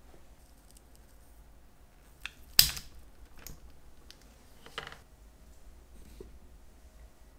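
A few short, sharp clicks and taps from handling small workshop tools: a micromotor polishing handpiece and a bottle. The loudest comes about two and a half seconds in, followed by a few softer clicks.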